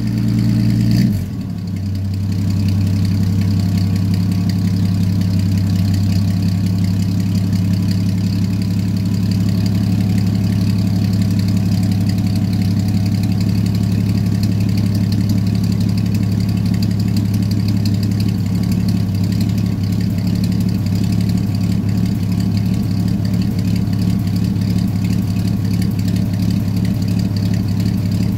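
Old pickup truck's engine just after a cold start, heard at its side-exit tailpipe: it runs high for about the first second, then drops into a steady cold idle.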